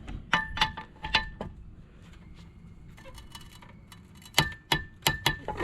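A wrench tightening a boat's propeller nut to torque: sharp metallic clicks with a brief ring. There is a cluster of them in the first second and a few more near the end.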